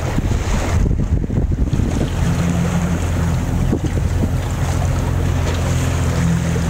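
A small fishing boat's engine running steadily under way, its low hum clearest from about two seconds in, with wind buffeting the microphone and water rushing along the hull.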